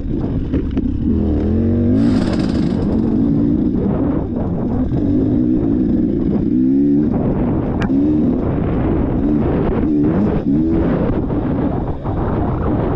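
Dirt bike engine revving up and down again and again as it is ridden along a trail, the pitch rising and falling with the throttle. A brief rush of hiss about two seconds in.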